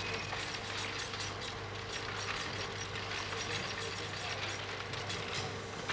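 Print-shop mechanical clatter: many light, irregular clicks over a steady low hum.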